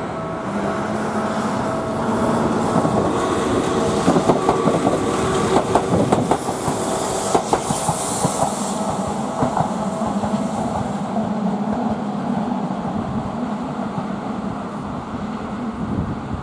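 Yokohama Minatomirai Railway Y000-series electric commuter train running along the line, its wheels clicking over the rail joints. It is loudest, with a hiss, about halfway through as it passes close by, then eases off.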